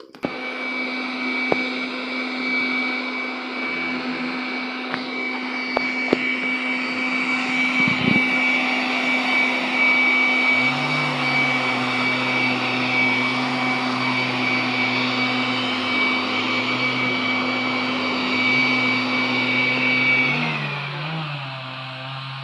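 Chainsaw motor running at a steady high pitch, then winding down with a falling pitch about twenty seconds in.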